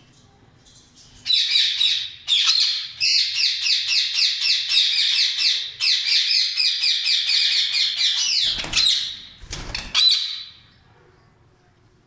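Rose-ringed parakeet screeching: a long run of harsh, rapidly repeated calls, about four or five a second, starting about a second in and stopping about ten seconds in. Two low thuds come near the end of the run.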